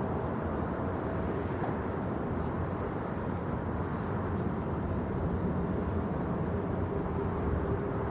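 Jet airliner engine noise, a steady low rumble with a faint even whine.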